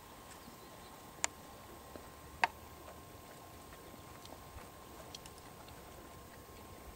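Belgian Warmblood gelding moving under saddle through a sand arena, heard faintly: soft hoofbeats with two sharper clicks about a second in and again a second later, over a faint steady hum.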